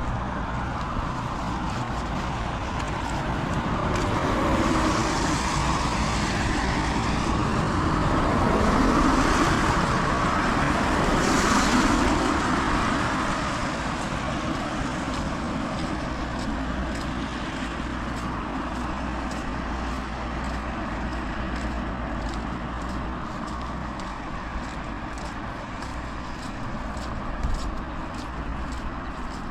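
A car passes on a rain-wet road. Its tyre hiss swells over several seconds and then fades, over the steady hiss of heavy rain.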